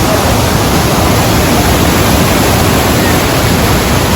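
Rhine Falls at close range: a huge volume of water plunging and crashing as a loud, steady, unbroken rush.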